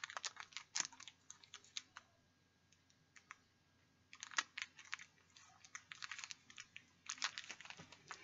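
Plastic toy packaging and parts being handled: irregular small clicks and crinkles, in clusters with a quiet pause of about two seconds in the middle.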